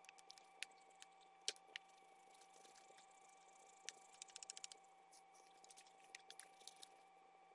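A coloured pencil tapping and scratching on paper: faint scattered clicks with a quick run of them about four seconds in, over a steady faint hum.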